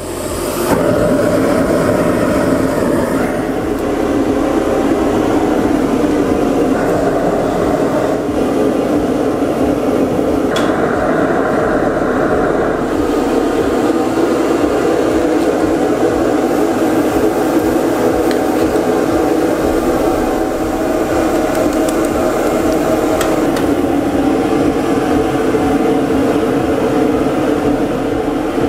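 Gas torch burning with a loud, steady rushing noise as it heats a bundle of chainsaw chain; the noise comes up about half a second in and then holds level.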